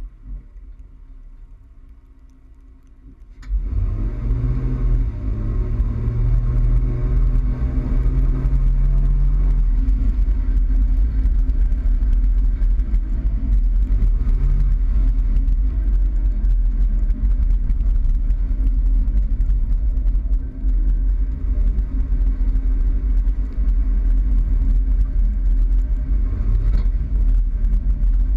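Toyota Tacoma pickup driving, its sound starting suddenly about three and a half seconds in as a heavy low rumble. The engine note rises and holds for several seconds, then eases, and climbs briefly twice more later on.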